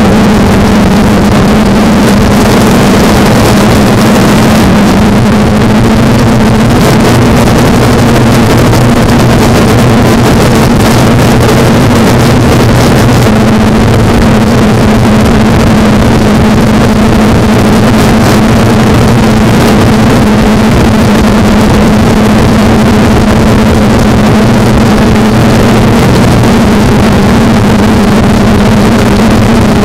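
Multirotor drone's electric motors and propellers running steadily in flight, a loud, even buzzing hum heard from the camera mounted on the airframe, with air rushing past.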